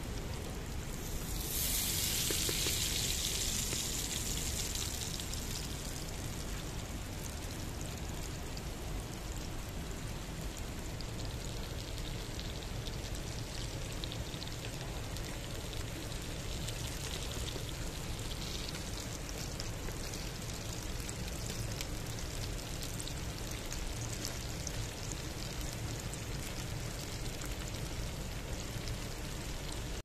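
Sausage piroshki deep-frying in a pan of hot oil: a steady sizzle that swells louder and brighter for a few seconds near the start.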